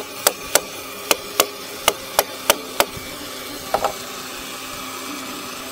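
Chisel being struck over and over to clean out a mortise pocket in a timber stair stringer: about eight sharp, uneven knocks in the first three seconds, then the striking stops.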